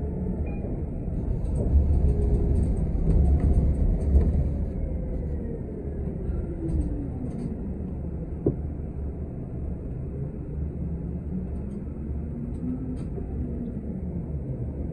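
City transit bus heard from inside: steady low rumble of the engine and driveline, with a whine that falls as the bus slows and then rises again as it pulls away, and scattered light rattles from the body.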